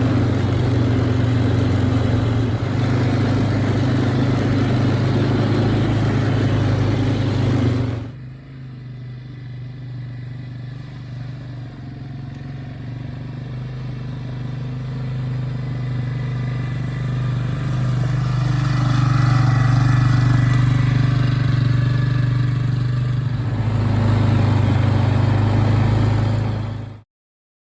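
A motor vehicle's engine running steadily with a low hum. It drops off about eight seconds in, then builds back up gradually, and cuts off abruptly near the end.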